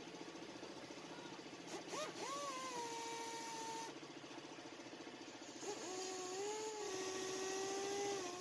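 Electric drill spinning an engine valve by a hose on its stem to lap it against its seat with fine grinding compound. The motor whine rises as it spins up and runs for about two seconds, stops, then starts again a little past the middle and keeps running.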